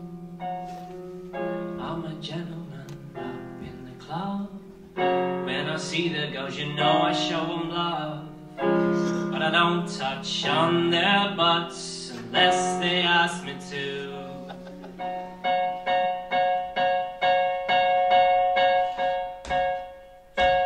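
Electric keyboard played on a piano sound: chords and quick runs, then from about fifteen seconds in one chord struck over and over, about twice a second.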